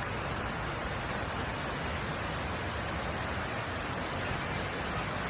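Waterfall rushing steadily: an even, unbroken wash of falling-water noise.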